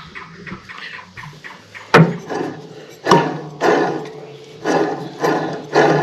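Idler pulley on a Scag Wildcat mower's transmission belt drive, spun by hand several times. Each spin starts with a sharp knock, then rasps as the pulley coasts down. The pulley is noisy.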